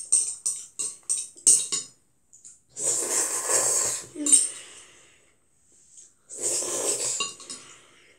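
A child eating jjapaghetti black-bean noodles: quick wet smacking chews, about four a second, for the first two seconds, then two long noisy slurps of noodles, each about a second and a half, about three seconds in and again near six and a half seconds.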